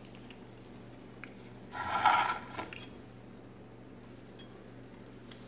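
Plastic-gloved hand working mashed tomato bhorta on a plate, with faint soft clicks and one brief louder scrape about two seconds in, over a low steady hum.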